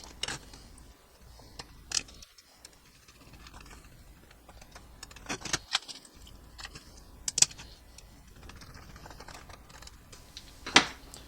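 Sparse small clicks and taps of parts and a small screwdriver being handled while a model freight car's trucks are unscrewed and fitted with new wheelsets.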